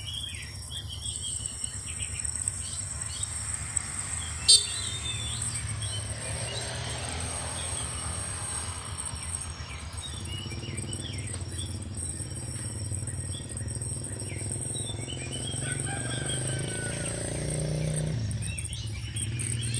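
Insects trilling in a steady, high-pitched drone, with scattered bird chirps. A single sharp click about four and a half seconds in.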